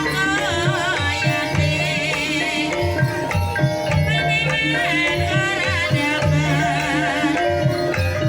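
Banyumasan gamelan music for ebeg: drum strokes and sustained metallophone notes under a wavering melody line.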